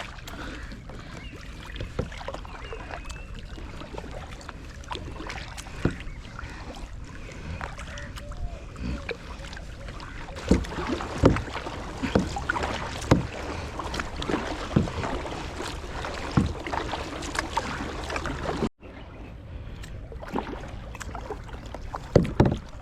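Kayak being paddled: the paddle dips and splashes, with short sharp knocks that come more often in the second half, over a steady wash of water and air. The sound drops out completely for an instant about three-quarters through.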